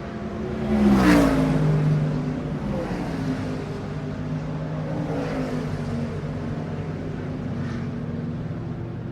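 NASCAR stock cars' V8 engines racing past. One car passes loudly about a second in, its pitch dropping as it goes by. Fainter passes follow around five seconds and near eight seconds, over a steady drone of engines.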